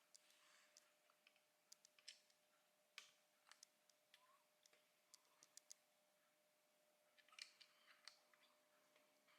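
Faint, scattered clicks and light taps of small hard parts being handled, with a small flurry of them about seven seconds in, over a faint steady hum.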